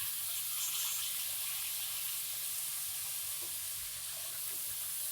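Vegetables and masala frying in a pressure cooker with a steady sizzle as soaked rice is added.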